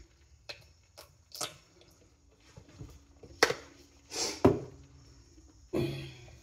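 Ketchup squirting and sputtering from a plastic squeeze bottle onto food, among scattered clicks and knocks of bottles being handled; the two loudest knocks come a little past the middle.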